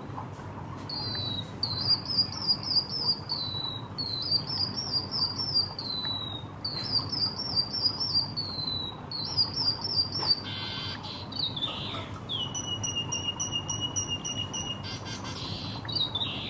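White-headed munia singing a canary-like song: four runs of rapid chirping notes that each slide downward, then one long steady whistle.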